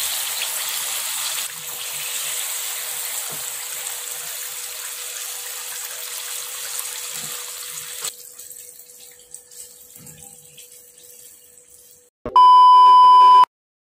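Banana fritters deep-frying in hot oil, a steady sizzle that fades to a faint crackle about eight seconds in. Near the end, a loud steady electronic beep lasting about a second.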